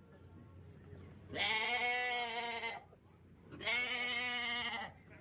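Two long, wavering bleats from a sheep or goat, each just over a second long, the second following about two seconds after the first.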